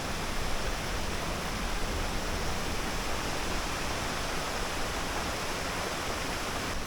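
Steady rushing of water from a small cascading waterfall.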